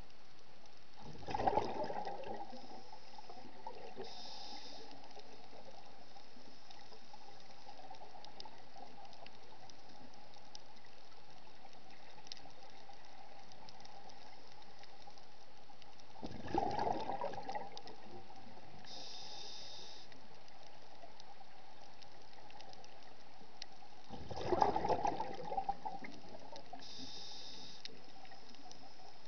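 Scuba diver breathing through a regulator underwater: three gurgling bursts of exhaled bubbles, about a second and a half in, about sixteen seconds in and near twenty-five seconds, each followed a few seconds later by a short hiss of inhaled air, over a steady faint hum.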